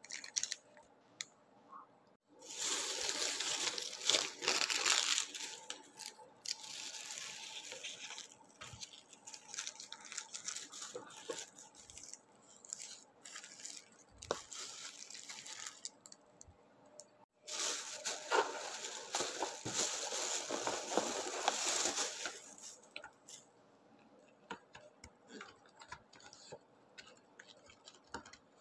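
Plastic carrier bag and paper takeout packaging rustling and crinkling as they are handled, in several long bursts with small taps and clicks in between.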